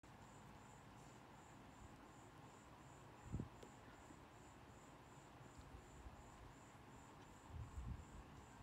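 Near silence with soft low thumps from kittens wrestling on a foam mat, the loudest a little over three seconds in and a cluster near the end. A faint high chirp repeats about three times a second throughout.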